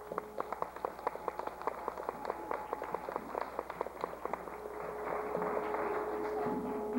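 Live stage music accompaniment: a quick run of sharp percussive taps, several a second, for about four seconds, then one steady held note near the end.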